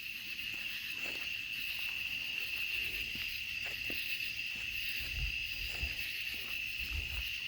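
Steady chorus of night insects: one continuous high-pitched trill, with a few faint low thuds in the second half.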